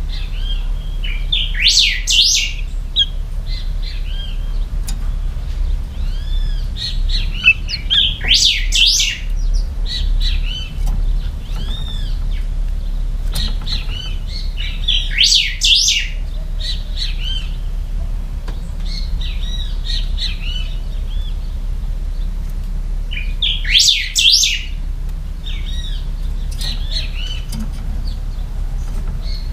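A caged, hand-reared young pica hueso singing. It gives about four short bursts of clear whistled song several seconds apart, with softer arched call notes between them. Its song is already fairly loud and clear.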